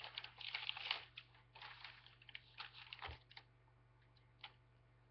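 Sheets of drawing paper rustling and crackling as they are handled, in two bursts of about a second and two seconds, with one faint click near the end.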